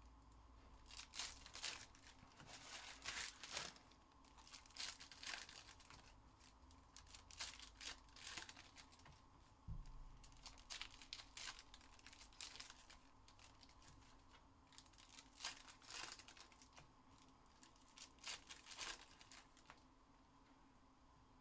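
Packaging on sealed trading-card boxes being torn open and crumpled, in irregular bursts of crinkling every second or two, with a low bump about halfway through.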